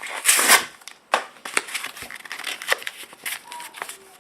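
Foil wrapper of a Pokémon TCG booster pack crinkling as it is handled, with a loud rustle about half a second in and scattered sharp crackles after.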